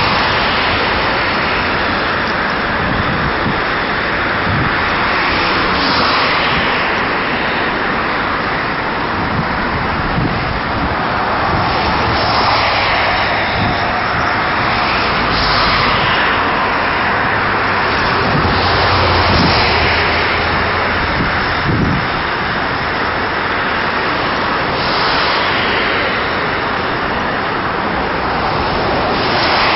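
Medical helicopter running on its helipad before lift-off: a loud, steady turbine and rotor noise with a low hum, swept by a hollow phasing every few seconds.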